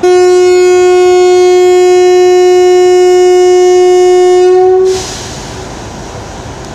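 WAP-4 electric locomotive's horn giving one long single-note departure blast of about five seconds, rising slightly in pitch just before it cuts off. A steady hiss remains afterwards.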